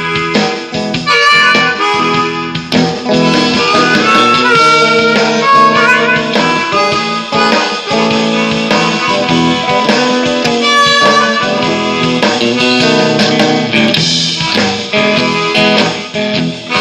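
Hohner Marine Band diatonic harmonica playing a blues solo over electric guitar, with sustained and bent notes.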